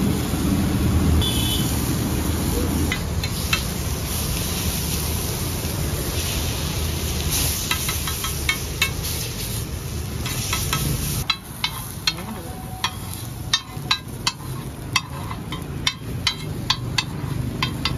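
Metal spatula striking and scraping a flat iron tawa griddle while pizza kulcha is pressed and chopped on it: sharp irregular clacks, a few in the first half and many in the last several seconds, over a steady street din.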